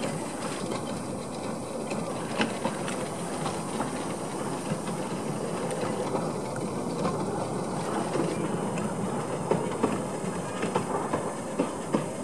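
Kerr Stuart Wren-class narrow-gauge steam locomotive running along the track with a small wagon, a steady rumble with wheels clicking over the rail joints. The clicks come more often and louder near the end as it draws closer.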